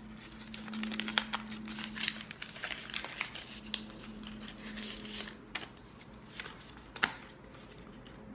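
A paper envelope being opened by hand and its contents handled: irregular crinkling and rustling of paper, with a sharp click about seven seconds in.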